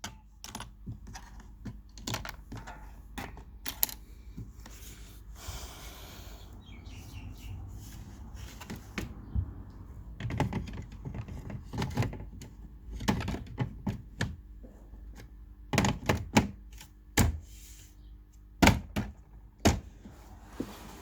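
Irregular clicks and knocks of a heat lamp unit's parts being handled and fitted back together, with a short scraping noise about six seconds in.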